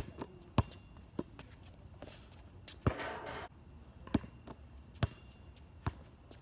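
Basketball bouncing on an outdoor hard court: about seven sharp single bounces, spaced roughly a second or less apart.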